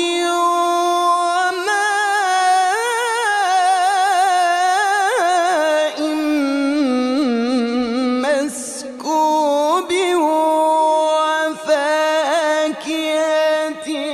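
A man's solo Quran recitation in a melodic, drawn-out style: one long ornamented line with a wavering, trilling pitch. The pitch climbs about a third of the way in and falls lower around the middle, with a few short breaks for breath.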